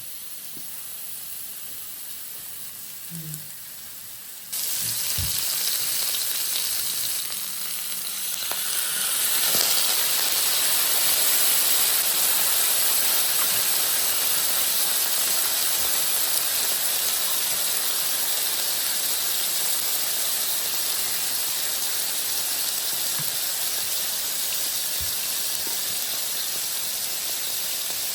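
Food sizzling in hot oil in a pan. The steady sizzle starts abruptly about four seconds in and grows louder a few seconds later.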